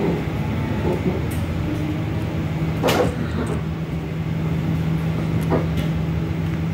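A vehicle engine running with a steady low hum, with a sharp knock about three seconds in and a fainter one later.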